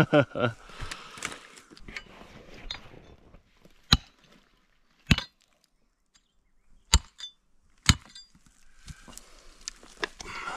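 Four sharp clinks of hard objects striking, each with a brief high ring, spaced one to two seconds apart, over faint handling and rustling.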